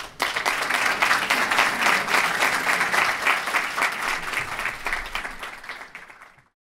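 Audience applauding, the clapping thinning out toward the end before the sound cuts off abruptly.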